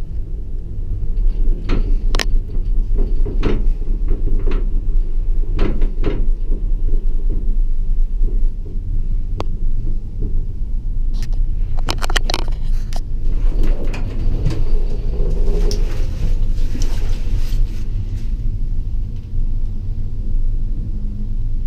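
Ride inside a Leitner eight-seat gondola cabin: a steady low rumble as the cabin runs along the haul rope, with a series of clicks and knocks as the grip passes over the tower's sheave rollers. About eleven seconds in come more sharp clicks, then several seconds of rattling clatter as the cabin runs into the top station.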